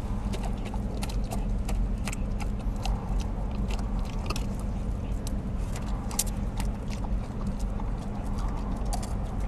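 Golden retriever licking and biting at a soft-serve ice cream cone: a run of irregular wet smacks and licks, several a second. A steady low hum from the car runs underneath.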